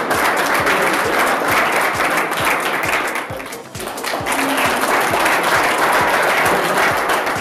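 A small crowd applauding, easing off briefly a little past halfway and then picking up again, over background music with a steady beat.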